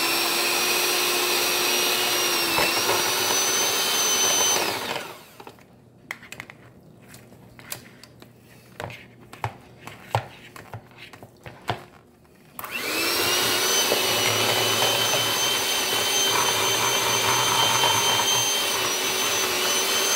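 Electric hand mixer running steadily with a high whine, its beaters shredding cooked chicken breasts in a bowl. It switches off about five seconds in, leaving several seconds of scattered clicks and knocks. Near thirteen seconds in it starts again, its pitch rising as it comes up to speed.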